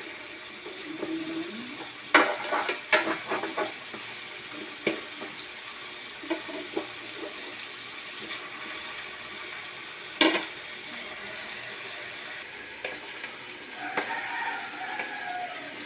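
Food frying in oil in a pan with a steady sizzle. A cooking utensil stirs it, knocking and scraping against the pan several times: a cluster of knocks a couple of seconds in, one about ten seconds in, and more near the end.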